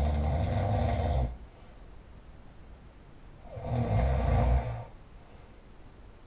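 A person snoring very loudly, two snores in all: the first is already going and stops a little after a second in, the second starts about three and a half seconds in and lasts just over a second, with a quiet gap between.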